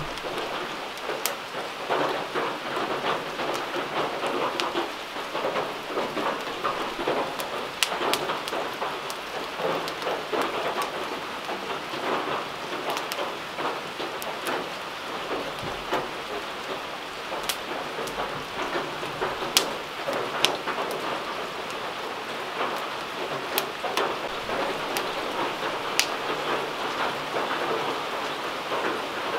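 Freshly lit split-wood fire burning in an outdoor firebox, crackling with a steady hiss and sharp pops every second or so.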